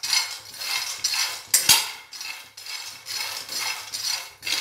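Raw peanuts being dry-roasted without oil in a steel kadhai, stirred with a steel spoon: a rattling scrape of nuts and spoon against the metal pan about twice a second, with one sharp knock of the spoon on the pan about a third of the way in.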